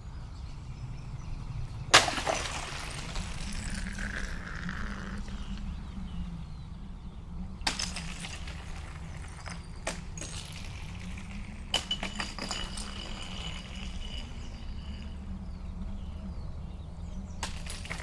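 Steady low rumble of a waterfall, broken by about five sharp clinks that ring briefly; the loudest comes about two seconds in.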